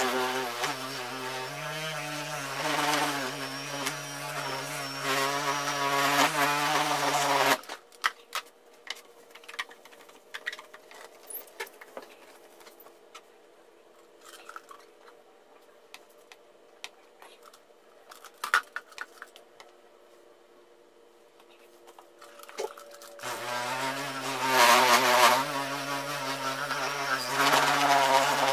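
Handheld Craftsman electric buffer-polisher running with a wool bonnet against a plastic headlight lens, working rubbing compound into the haze with a steady motor hum. It stops suddenly about seven seconds in, leaving a quiet stretch with a few small clicks, then starts again near the end and runs on.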